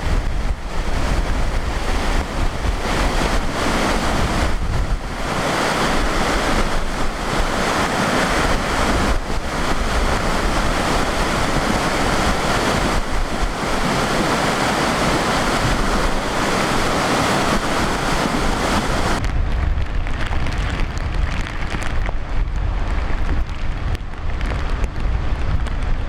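Storm noise: wind buffeting the microphone over a steady rush of water from rain-swollen runoff. The sound turns duller, losing its hiss, about three quarters of the way through.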